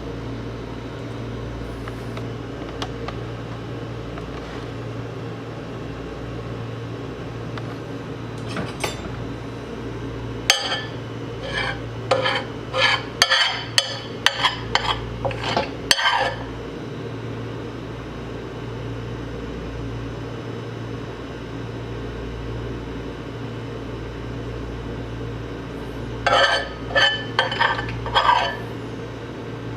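Microwave oven running with a steady hum while shampoo heats inside it. Two spells of sharp crackling and popping clicks break in, one about a third of the way in and a shorter one near the end.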